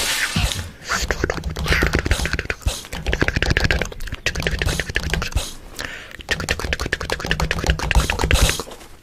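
A dense, uneven run of sharp clicks over low thumps, with a few brief breaks.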